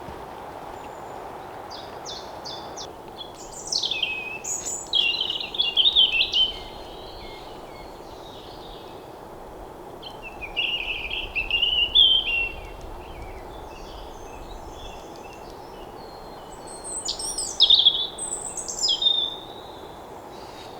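A songbird singing three separate phrases of quick, varied chirps and trills, several seconds apart, over a steady background hiss.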